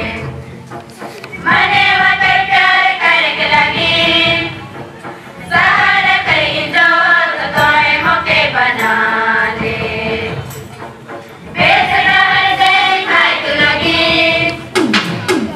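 Choir of schoolgirls singing together, phrase by phrase, with three short breaks between the phrases.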